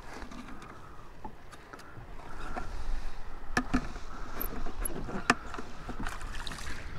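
Clicks and knocks of a plastic floating bait bucket being handled and lowered over the side of a jet ski, with sharp knocks about three and a half and five seconds in, over water lapping against the hull.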